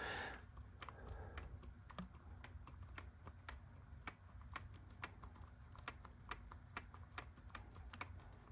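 Faint, light clicks at about two a second, fairly even, from a swab scrubbing a Sony Video 8 camcorder's video head drum while the drum is turned by hand during head cleaning.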